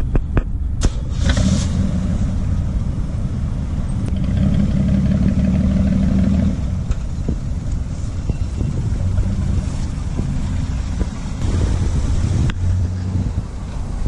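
Car engine running at low speed, the inline six of a 1979 Camaro; it pulls harder about four seconds in and eases back about two seconds later.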